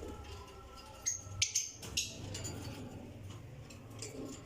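Caged lovebirds giving short, sharp, high chirps, four in quick succession between about one and two seconds in, with a lighter one near the end, over a low steady hum.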